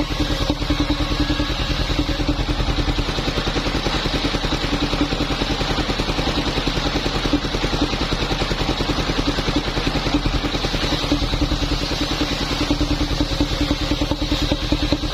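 Engine of a wood-sawing machine running steadily with a fast, even pulse.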